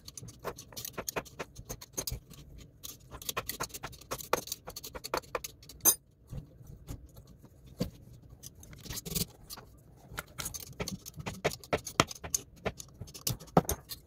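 Irregular metal clicks, taps and rattles of a blower motor and its belly-band mount being slid into position and tightened by hand, with a few louder knocks.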